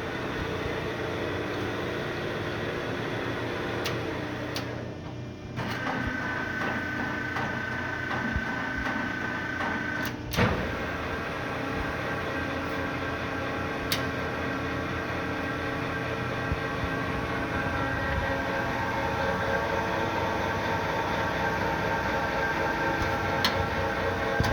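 LeBlond Makino 15" x 50" engine lathe running under power: a steady gear-driven whir with several held whining tones. The sound dips briefly about five seconds in, and there is a sharp clack about ten seconds in and a lighter tick a few seconds later.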